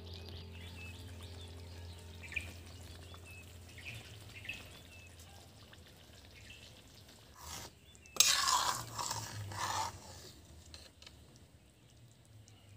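A spoon stirring and scraping in a cooking pan of curry, with a few light clicks, then louder handling for about two seconds around eight seconds in, over a faint low steady hum.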